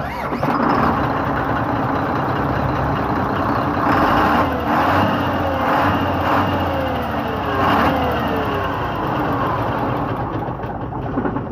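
Hino P11C six-cylinder diesel truck engine starting up and running, rising and falling in speed a few times. It dies down near the end as it is switched off.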